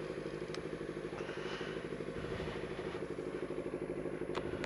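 Yamaha R6 sportbike's inline-four engine idling steadily at a standstill.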